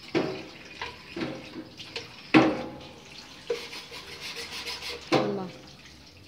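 Metal ladle knocking against a stainless-steel cooking pot about five times, each clank ringing briefly, the loudest about two seconds in, with liquid being stirred in between.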